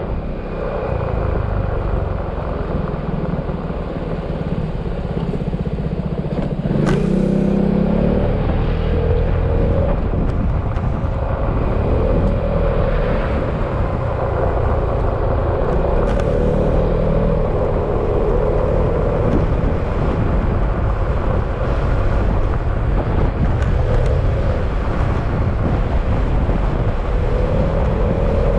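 Yamaha XMAX scooter's single-cylinder engine running while riding, with wind and road noise. The engine note rises and falls with speed, and there is a sharp click about seven seconds in.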